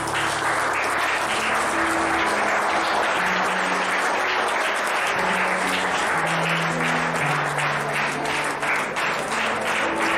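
Applause and clapping, thinning into separate claps toward the end, over instrumental music with slow, held notes.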